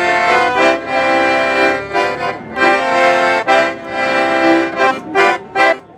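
Piano accordion playing a tune in full sustained chords, closing with a few short, clipped chords near the end before stopping.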